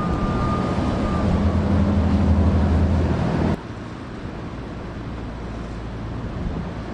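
Boat engines running with a steady low drone that cuts off abruptly about three and a half seconds in, leaving quieter wind noise on the microphone.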